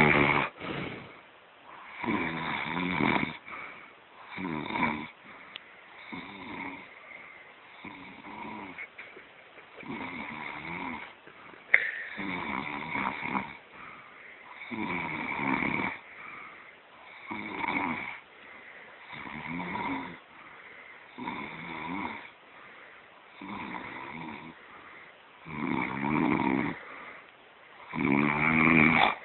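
A sleeping person snoring in a steady rhythm, one snore about every two to two and a half seconds, each lasting about a second.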